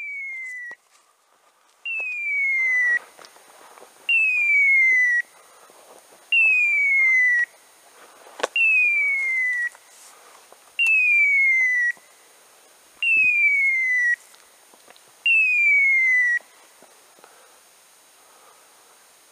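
Electronic beeper collar on a hunting dog sounding eight loud beeps, each a smoothly falling tone about a second long, one about every two seconds, then stopping. A single sharp knock comes between the fourth and fifth beeps.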